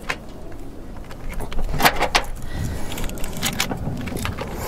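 Jumper cable clamps clicking and crackling against battery terminals and metal, with a cluster of sharp snaps about two seconds in, over a steady low rumble.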